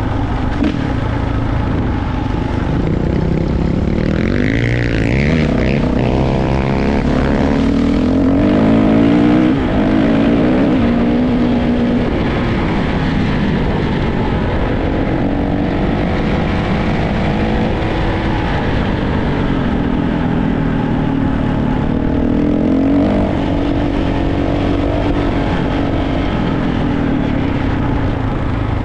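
Kawasaki KX450 four-stroke single-cylinder dirt bike engine being ridden, its pitch climbing and dropping again and again as the throttle is opened and closed.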